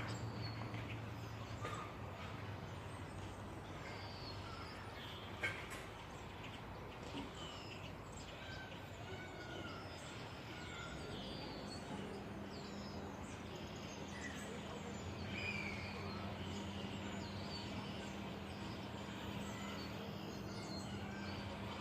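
Birds chirping outdoors, many short scattered chirps and calls over steady background noise, with a faint low hum throughout that gets a little stronger about halfway through. A single short knock about five seconds in.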